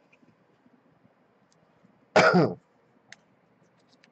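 A man clearing his throat once, about two seconds in: short, loud and falling in pitch.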